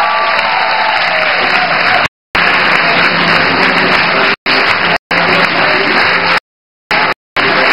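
Audience applauding, a loud, dense clapping that cuts out completely several times for a split second, the longest gap about two-thirds of the way through.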